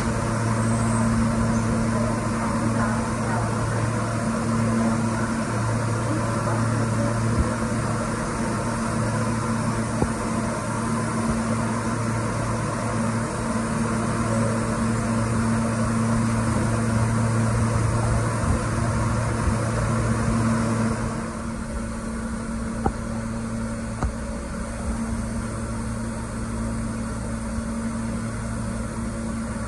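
New York City Subway L train standing at a terminal platform, its onboard electrical equipment and ventilation giving a steady low hum under a rushing noise. About two-thirds of the way in, the rushing noise drops away and a quieter hum carries on, with a few faint clicks.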